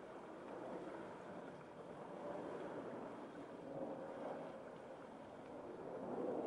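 A steady rushing noise that swells and eases a little in loudness, with no distinct tones or clicks.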